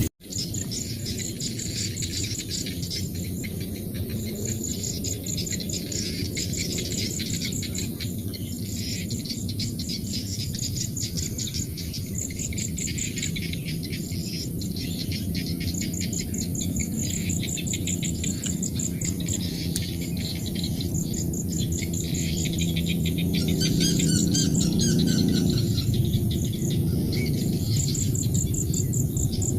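Rice-field chorus: insects trilling in repeated high, rapid pulse trains over a dense low chorus of frogs, with a brief bird chirping about 24 seconds in.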